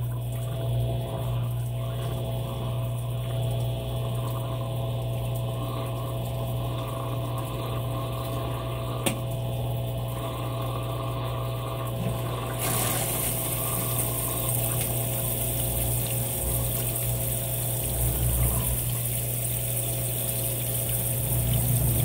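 Consul 16 kg top-load washing machine draining: its drain pump runs with a steady hum while water runs out of the tub. A higher hiss joins in about halfway through.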